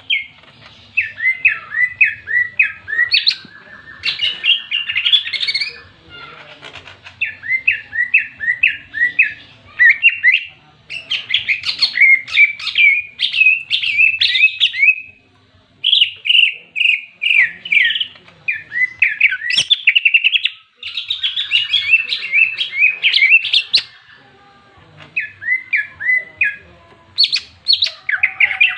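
Caged green leafbird (cucak ijo) singing loudly in fast phrases of sharp, repeated chirping notes, with a buzzing rattle worked in twice. This is the agitated 'fighting' song (ngentrok, jenggrik) that keepers play to provoke other cucak ijo into singing.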